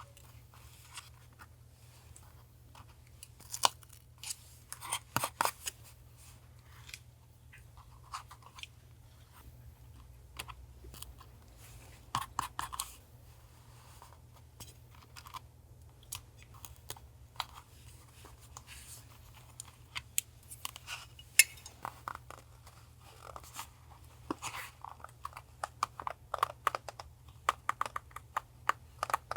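Paper being handled for collage journaling: scattered crinkles, rustles and sharp little taps of paper and stickers on a desk, busier in the last third, over a steady low hum.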